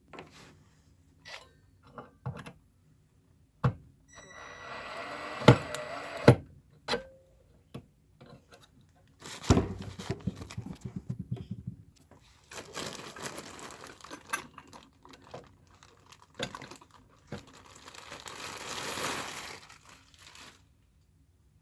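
Plastic packaging rustling and tearing, with several sharp knocks and clicks as parts are handled.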